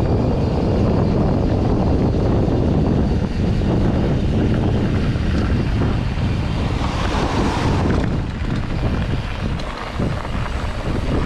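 Wind buffeting the microphone of a handlebar-view camera on a mountain bike descending fast, over the rumble of knobby tyres on loose gravel. A brighter hiss swells about seven seconds in.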